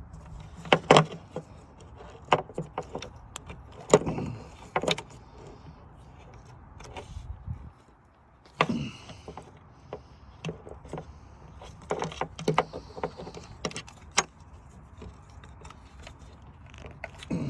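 Hands handling the wiring and plastic connector of an LED angel eye bulb in a car's headlight area: irregular sharp clicks, taps and rattles, a few of them loud, over a steady low hum. The hum drops out briefly about eight seconds in.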